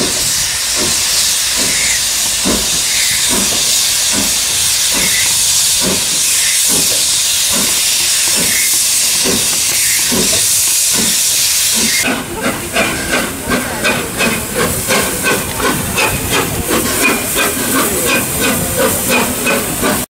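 Steam locomotive hissing loudly and steadily with escaping steam, with a faint beat about one and a half times a second. About twelve seconds in, the sound changes abruptly to rapid rhythmic pulsing, about three beats a second.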